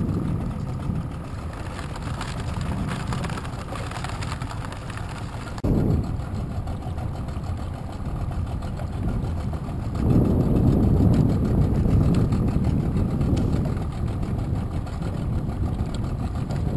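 Small boat's motor idling at low speed, a steady low rumble that grows louder for a few seconds about ten seconds in.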